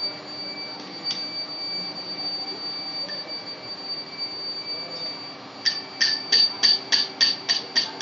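Steady high-pitched whine of a running induction melting furnace. From about six seconds in comes a quick run of sharp taps, about four a second.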